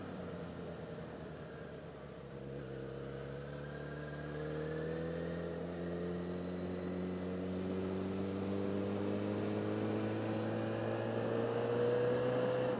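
Yamaha XJ6's 600 cc inline-four engine pulling under gradual acceleration, its pitch rising slowly and steadily from about two seconds in.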